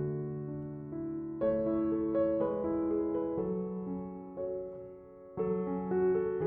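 Soft background piano music, slow chords that change every second or so, fading briefly about five seconds in before a new chord begins.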